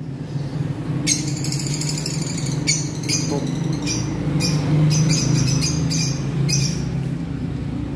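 Lovebirds calling in short, rapid high-pitched bursts, repeated many times, over a steady low hum.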